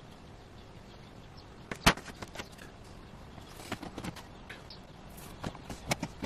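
Walnut boards being handled and set into bar clamps: one sharp wooden knock about two seconds in, then scattered lighter knocks and clicks as the strips, panel and clamp jaws are moved into place.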